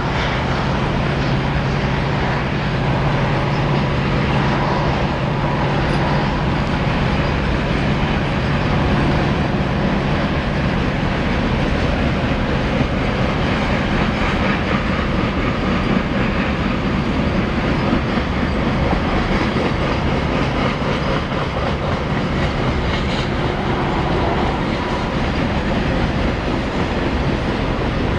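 A container freight train's wagons rolling along the track: a steady rail rumble with wheel clatter. A low hum is heard for the first ten seconds or so and then fades out.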